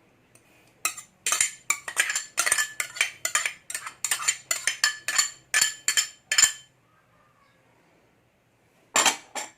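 A utensil scraping and clinking against a bowl in quick repeated strokes, about three a second, as minced carrots are scooped into the coleslaw; it stops for a couple of seconds and a few more strokes come near the end.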